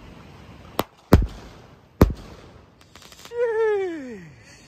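Aerial firework shells bursting overhead: three sharp bangs, the first two close together about a second in and a third a second later. Near the end a drawn-out tone slides down in pitch.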